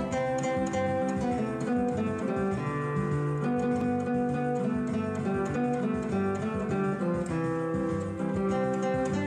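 Background music on acoustic guitar: a plucked and strummed tune with notes changing at a steady pace.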